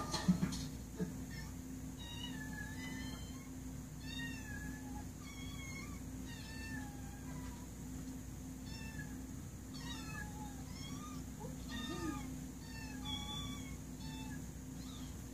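Kittens mewing over and over in short, rising-and-falling calls, heard through a television's speaker over a steady low hum. A few sharp knocks come in the first second.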